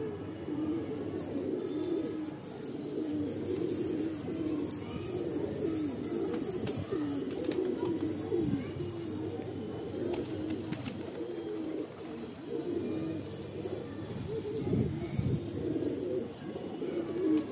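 Domestic pigeons cooing over and over in low, wavering calls. A few short clicks come about ten seconds in.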